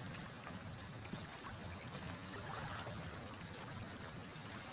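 Choppy open water lapping, with wind on the phone's microphone: an even, steady low rush.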